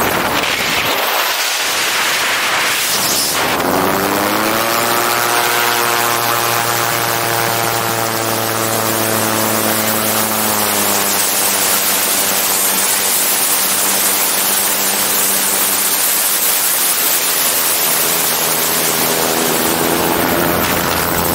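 Autogyro's engine and pusher propeller in flight under heavy wind rush over an outside-mounted camera; the engine note rises about four seconds in, holds, eases back around ten seconds, and climbs again near the end.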